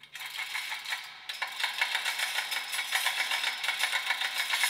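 Manual chain hoist being worked by hand: the hand chain rattles through the hoist with a fast, steady clicking. It starts faint and grows louder and denser about a second in.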